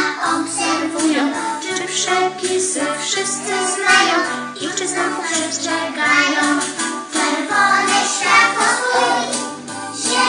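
A children's song on a backing track with a steady bass line, and young children's voices singing along.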